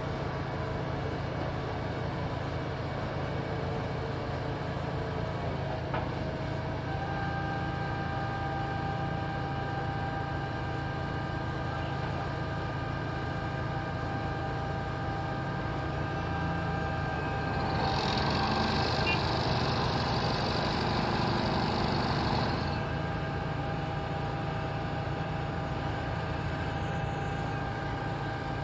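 Diesel engine of a road-construction machine running steadily, with a brief click about six seconds in and a hiss lasting about five seconds about two-thirds of the way through.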